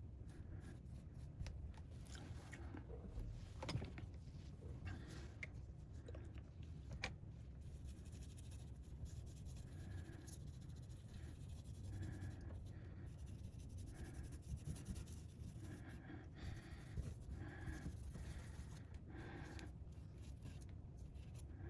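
Faint scraping and rubbing with scattered small clicks: thermal paste being worked on the CPU and GPU of a MacBook Pro 16 logic board, old dried paste wiped off and fresh compound spread on.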